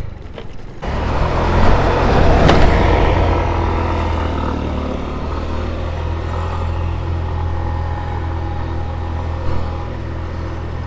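Motorcycle engine and wind rush heard from the rider's position as the bike pulls away about a second in, loudest a couple of seconds later, then settling into a steady cruising drone.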